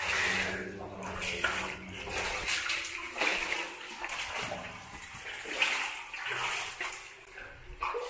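Shallow water sloshing and splashing in uneven surges as a person crawls through it.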